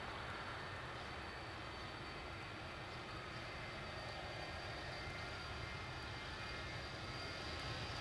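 Four-engine Avro RJ airliner's turbofans running at high power as it starts its takeoff roll: a steady engine noise with a thin high whine, slowly growing louder.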